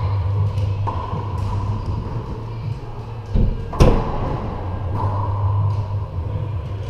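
Racquetball rally: a dull thud and then, just after, one sharp smack of the ball being hit, ringing in the enclosed court, over a steady low hum.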